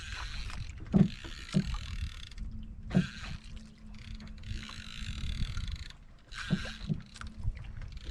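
Water slapping against a wooden outrigger boat's hull with a steady hiss of wind and sea, and a handful of irregular knocks from the boat.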